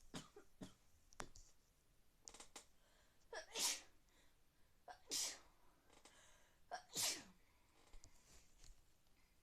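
A person with a cold sneezing three times, each sneeze about a second and a half to two seconds after the last, with a short lead-in just before each burst.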